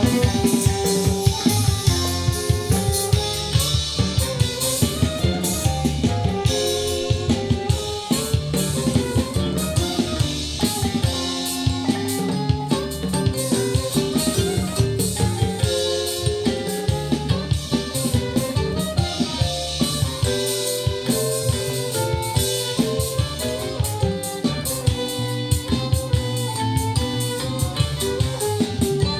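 Recorded band music with a steady drum beat, bass and guitar, played through Teufel M200 loudspeakers driven by a Harman Kardon HK 970 amplifier and picked up by a recorder's built-in microphones in the room.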